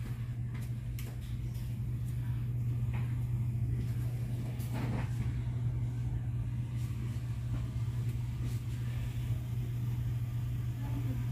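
Steady low hum, with a few faint clicks and rustles over it.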